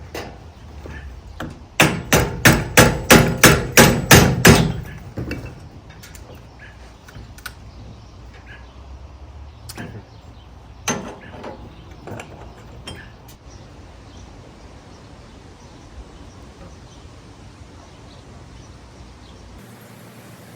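Rapid hammering: about ten even blows, roughly four a second. A few lighter, scattered knocks of tools and parts follow.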